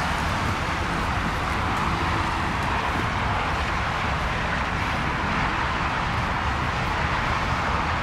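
Steady outdoor background noise of traffic: an even rush and low hum with no single event standing out.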